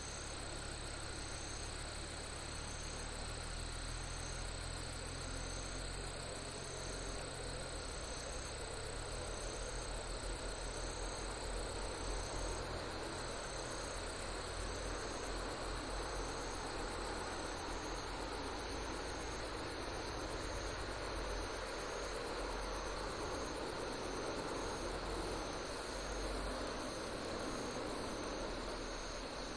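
Crickets and other night insects calling: a fast, continuous high trill, with a shorter chirp repeating about once a second, over a steady even hiss.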